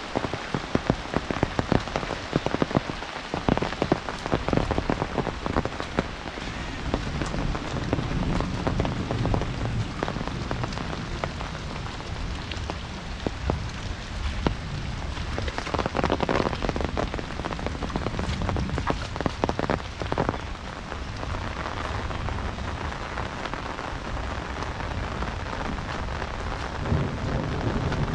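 Heavy rain falling steadily, with many close, sharp drop impacts pattering over the hiss and a low rumble swelling at times.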